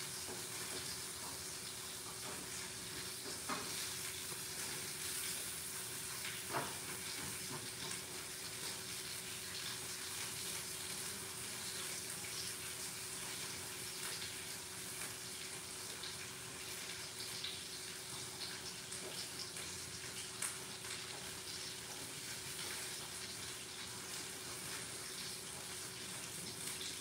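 Steak sizzling in a frying pan: a steady frying hiss with small crackles and a few light clicks of a utensil against the pan, over a steady low hum.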